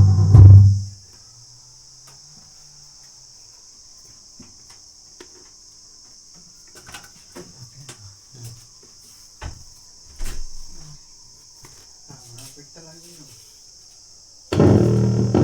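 Bass-heavy music from a home theater system stops about a second in. A quiet stretch follows with faint clicks and handling knocks over a steady high-pitched hiss while a spare speaker is wired up for testing. Near the end the bass-heavy music starts again, loud.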